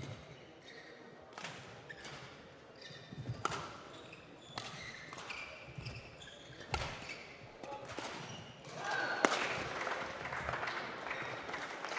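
Badminton rally: the rackets hit the shuttlecock with sharp cracks about once a second, and shoes squeak on the court floor between shots. The hardest hit comes a little after nine seconds in, and a louder, noisy hall din follows it.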